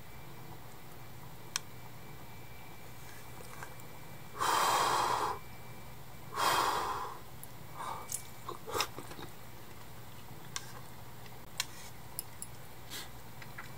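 A person blowing twice on hot hotpot broth and food to cool it. Each breath is airy and lasts about a second; the first is steady and the second fades out. A few light clicks and taps follow, like chopsticks against a bowl.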